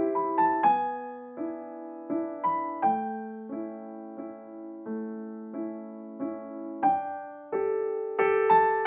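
Background piano music: a slow, gentle melody of single notes and soft chords, a new note struck roughly every two-thirds of a second and left to ring and fade.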